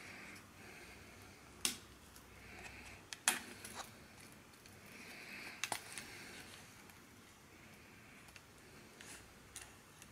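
Leather knife sheath being handled: three sharp clicks about two seconds apart, with a few smaller ticks, as the press-stud of its retaining strap is worked open, and soft leather rubbing as the stag-handled hunting knife begins to slide out.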